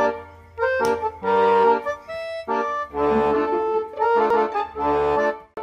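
Background music: an instrumental tune in short held notes, with a bass line joining about three seconds in.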